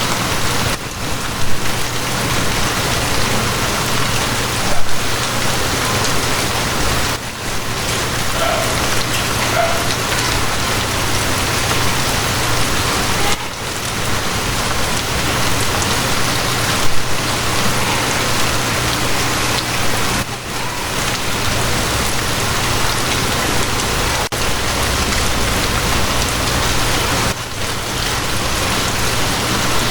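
Steady rain ambience as heard in a train carriage, with a low steady hum underneath. The level dips briefly every six or seven seconds.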